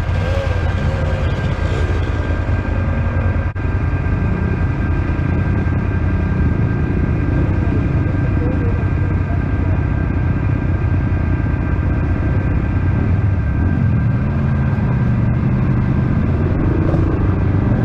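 ATV engine running steadily with a steady drone. From about 13 seconds in, an engine tone rises and falls in pitch.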